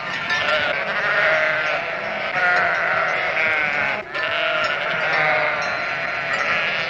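A flock of sheep bleating, many wavering calls overlapping, with a brief break about four seconds in.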